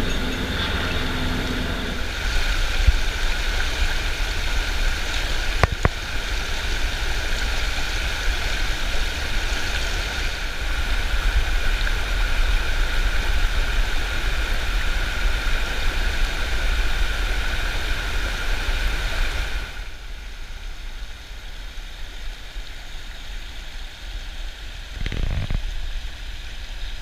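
Mountain river rushing over stony shallows, a steady hiss of water over a low rumble. About twenty seconds in it drops quieter and softer.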